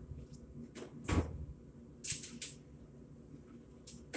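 A soft knock about a second in, then two short scraping hisses a second later, over a faint steady hum.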